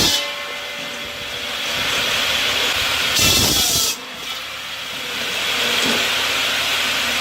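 Machinery running with a steady hissing noise, which changes abruptly about three seconds in and again about a second later.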